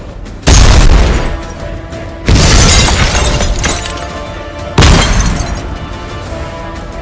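Three explosion sound effects in a row, each a sudden deep boom that fades over a second or two, with shattering glass and debris in the tails. Background music plays underneath.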